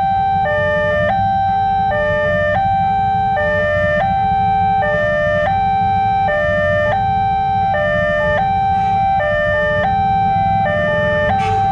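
Railway level-crossing warning siren sounding: an electronic alarm cycling through stepped steady tones, a high note alternating with lower ones, over and over. A steady low rumble runs underneath.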